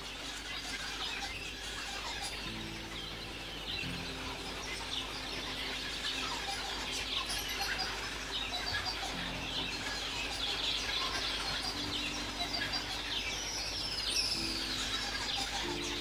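Many birds chirping and calling in a busy, steady chorus of high twitters and whistles, with a few sweeping calls near the end. Soft background music with long held low notes plays underneath.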